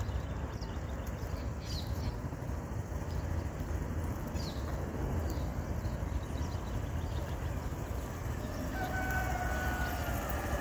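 Small motorcycle engine running at low speed as the learner rides it around the cones and pulls up to a stop. Birds chirp now and then, and near the end a rooster crows once.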